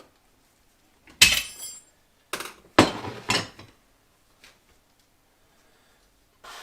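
Metal-on-metal hammer blows, four sharp ringing strikes: one about a second in, then three in quick succession about two and a half to three and a half seconds in, while working loose the end cap of a hydraulic cylinder. A softer rush of noise starts near the end.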